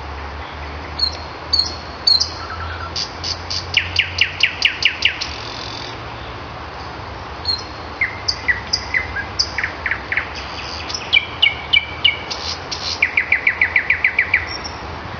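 Nightingale singing: short phrases of clear whistles and fast runs of repeated notes, separated by brief pauses. One rapid run comes about four seconds in and another near the end.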